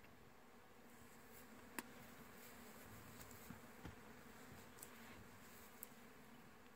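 Near silence: a faint steady buzz with a few soft clicks, the sharpest about two seconds in.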